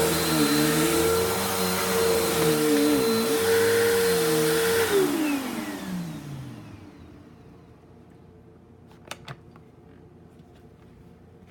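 Bissell vacuum cleaner running loudly, its lower motor tones wavering up and down. About five seconds in it is switched off, and the motor whine falls in pitch as it spins down over a couple of seconds. Two faint clicks follow near the end.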